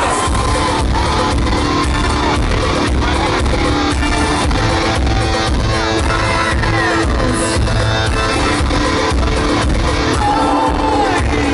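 Live band music over a concert PA, heard from within the crowd: loud, with a steady beat, singing and guitar.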